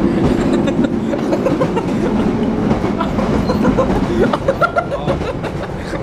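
Passenger train running, heard from inside the carriage: a steady rumble with rattling and clicking from the wheels and the carriage.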